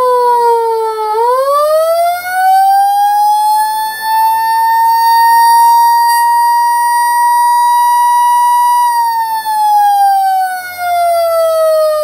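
Federal Model 28 electromechanical siren sounding the attack signal. Its tone drops to its lowest about a second in, winds back up over about three seconds to its top pitch, holds there steadily for about five seconds, then winds down again near the end.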